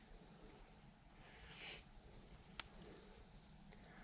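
Near silence with a faint, steady high-pitched whine, a brief soft rustle about one and a half seconds in, and a small click a second later.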